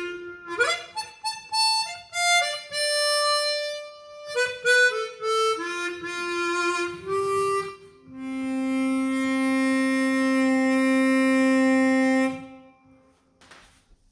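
Easttop EAP Performer 16-hole chromatic harmonica played solo: a melodic run of separate notes, then one long low note held for about four seconds before it stops.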